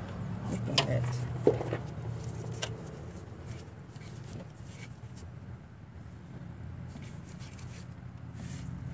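Faint scraping with a few sharp clicks in the first two seconds, as old gasket residue is cleaned off the thermostat housing's mating surface.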